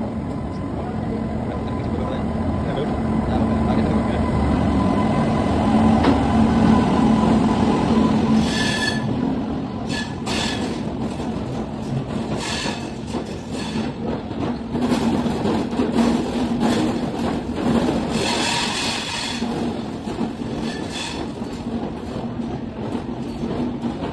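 Passenger train pulling into a station platform: a heavy rumble that builds as the locomotive comes past, then the coaches rolling by with several short, high-pitched wheel squeals.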